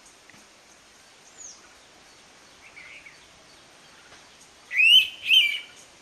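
Indian pitta giving its loud two-note whistled call near the end, the two clear notes following each other quickly. Faint, thin chirps of another bird come earlier.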